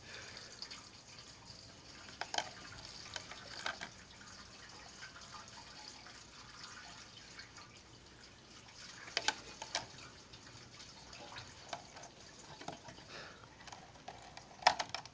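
Faint trickle of liquid, with a few scattered clicks and knocks; the sharpest comes near the end.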